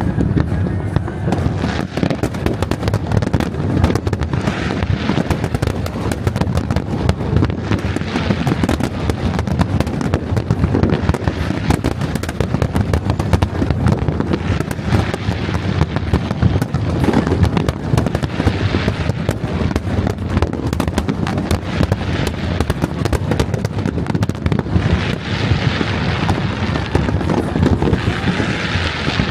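Fireworks going off close by in a continuous barrage of bangs and crackles, with a rising hiss near the end.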